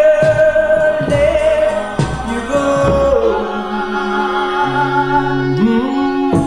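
Doo-wop vocal group singing a slow ballad in close harmony, with long held notes and chord changes over a slow backing beat.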